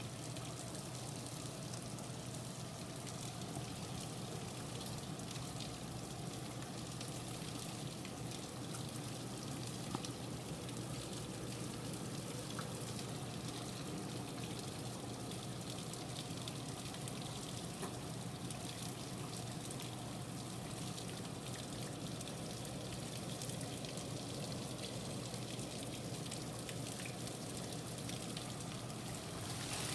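Heavy rain falling steadily, a constant hiss of rain on the ground and on standing floodwater, with one brief click about a third of the way in.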